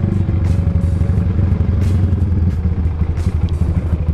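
Motorcycle engine running steadily under way, a fast, even low exhaust pulse with no clear revving up or down.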